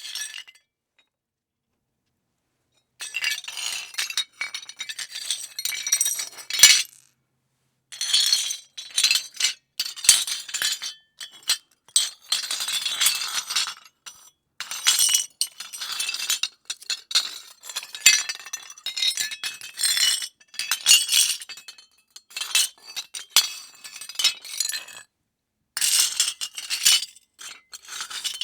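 Foley of rubble breaking: brittle fragments crunching and clinking in dense runs with short pauses, starting about three seconds in.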